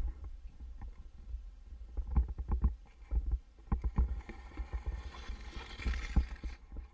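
Muffled audio from a camera under water in a pond: a low rumble with irregular knocks and clicks, and a brief hiss of water about five to six seconds in.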